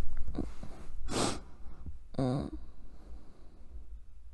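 A woman breathing close to the microphone: a strong breath out about a second in, then a short breathy voiced sound, like a hummed "mm", a little after two seconds.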